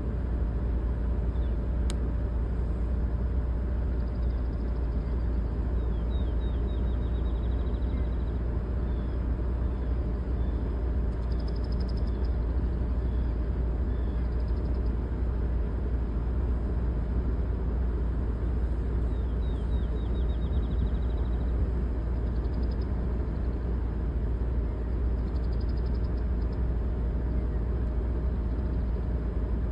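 Steady low rumbling noise throughout, with faint birds calling over it: two quick descending trills and a few short high chirps.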